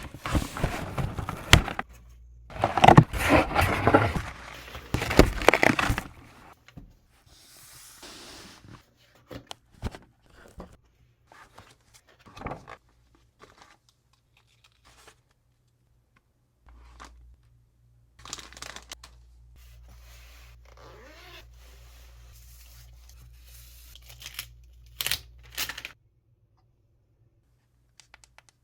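Packaging being opened by hand: plastic and paper wrapping tearing and crinkling loudly for about the first six seconds, then scattered clicks, taps and rustles as the parts are handled, with a faint low hum in the second half.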